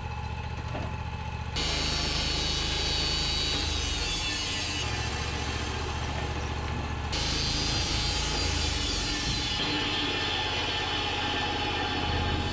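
Wood-Mizer LT35 portable band sawmill running, its engine and band blade sawing through a cedar log for fence boards. The sound shifts abruptly several times.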